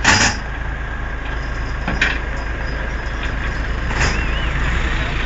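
Steady low rumble of motor vehicles, an engine and road noise, with short bursts of noise about two seconds apart.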